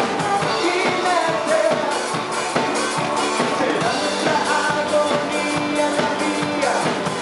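Live new wave rock band playing: a drum kit keeping a steady beat under electric guitar and a singer's voice.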